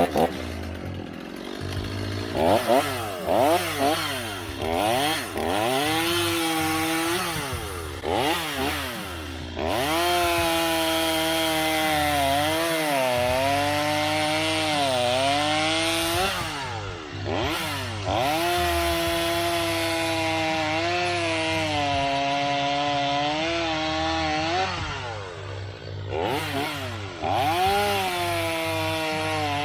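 An old two-stroke chainsaw revs up and cuts through wood, its engine pitch sagging under load several times. It drops back toward idle twice between cuts and then revs up again.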